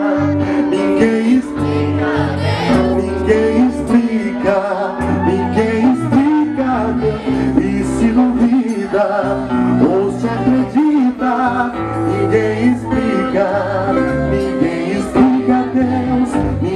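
Gospel worship song: a voice singing over a band with bass and guitar.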